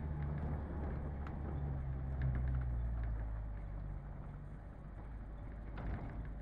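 Daihatsu Feroza 4x4 driving on a dirt track: a steady low engine hum over tyre and road noise, the engine easing off about four seconds in, with a few light knocks and rattles.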